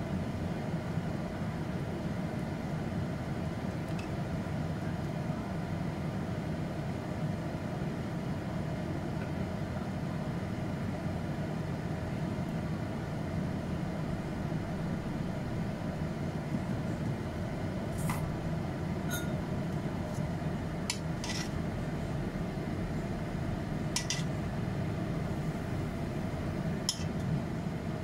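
Tongs and a ladle clinking against a ceramic plate and a wok as ribs and sauce are served, several sharp clinks in the last third, over a steady low kitchen hum.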